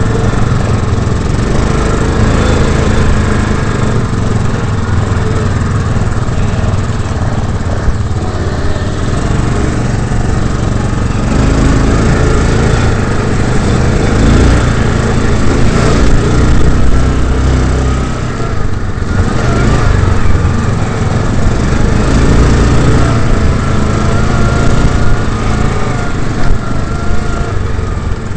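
Quad bike (ATV) engine running close to the microphone, its pitch rising and falling as the throttle is opened and eased over rough ground.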